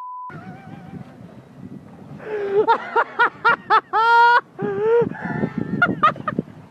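A brief steady beep at the very start, then excited voices laughing and yelling, with one long rising shout about four seconds in.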